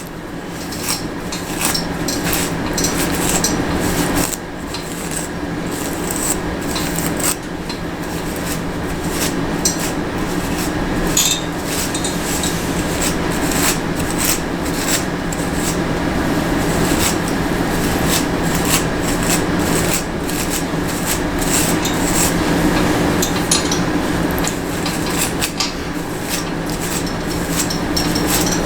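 Hairbrush being drawn again and again through set, gel-stiffened curls, a rapid series of rasping brush strokes, with a steady low hum underneath.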